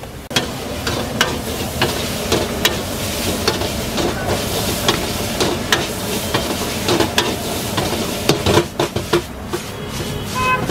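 Noodles sizzling in a wok over a gas burner while a metal spatula and ladle scrape and clank against the pan in quick, irregular strokes as they are tossed.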